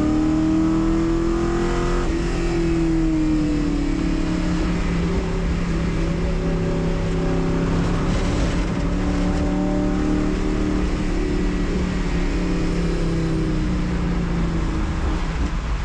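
Race car engine running under load, its pitch rising a little and falling back in the first few seconds, then holding fairly steady with small rises and dips.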